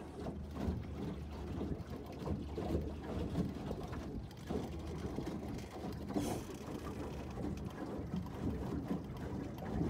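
Water lapping and slapping irregularly against the hull of a small boat on a lake, with wind on the microphone.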